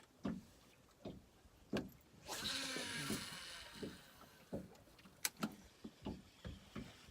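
Spinning fishing reel whirring for about a second, a little over two seconds in, with scattered clicks and knocks around it.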